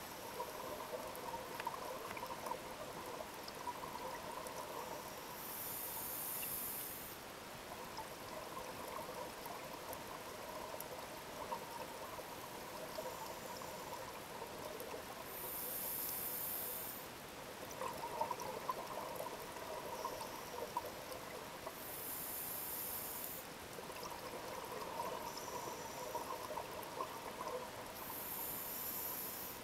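Scuba diver breathing through a regulator underwater: a short hiss on each inhale, four times, followed each time by a few seconds of gurgling, bubbling exhale.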